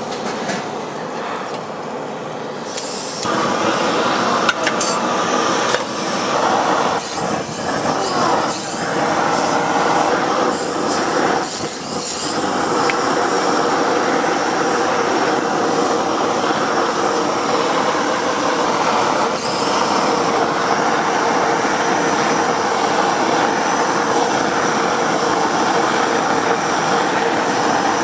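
Hagfish frying on a hot griddle: a steady sizzle that grows louder and fuller about three seconds in.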